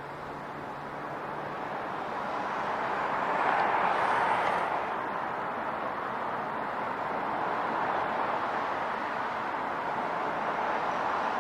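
Street traffic passing: a steady hiss of tyres and engines that swells as vehicles go by, loudest about four seconds in, with smaller swells later on.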